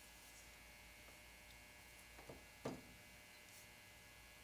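Two small clicks from a revolver's metal trigger parts being worked between the fingers, the second louder, over a faint steady hum.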